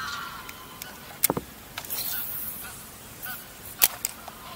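Geese honking a few times, one call right at the start and shorter ones later. Two sharp knocks, about a second in and near four seconds, stand out as the loudest sounds.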